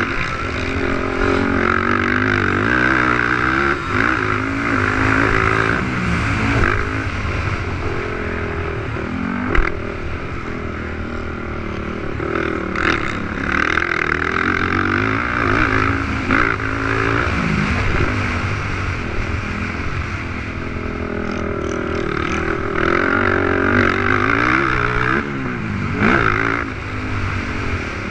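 Race quads' 450cc single-cylinder four-stroke engines revving up and down around a motocross track, the pitch climbing and dropping over and over, with a sharp knock about nine and a half seconds in.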